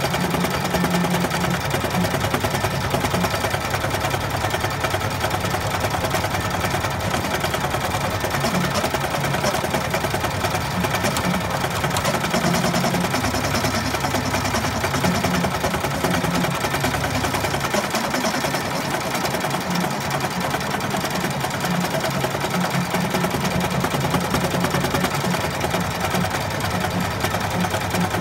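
Bernina E16 sixteen-needle industrial embroidery machine stitching out a design: a steady, fast, even stitching clatter with the machine's motor running underneath.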